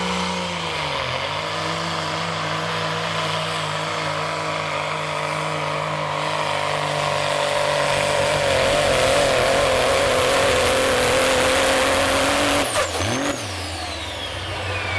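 Pro Stock semi truck's turbocharged diesel engine running hard under load as it pulls a sled, with a steady high whistle over it and getting louder partway through. About 13 seconds in the engine drops back sharply at the end of the pull, and the whistle falls away in pitch as it winds down.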